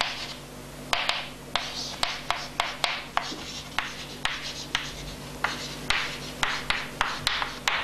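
Chalk writing on a chalkboard: a quick run of short scratchy strokes, each starting with a sharp tap as the chalk meets the board, over a faint steady low hum.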